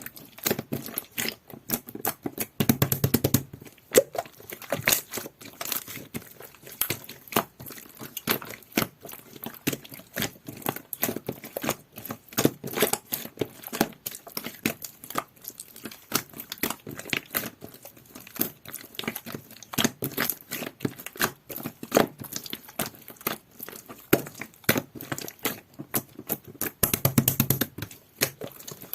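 Slime being squished, poked and stretched by hand. It makes a dense, continuous run of small wet clicks and crackles, with heavier bursts a few seconds in and again near the end.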